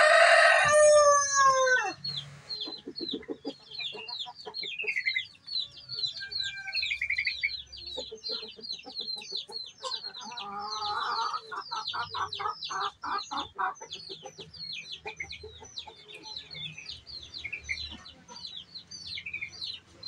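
A rooster crowing over the first two seconds, its call falling in pitch at the end, followed by many short, high chirps from small birds repeated a few times a second, with a spell of lower, rapid clucking calls around the middle.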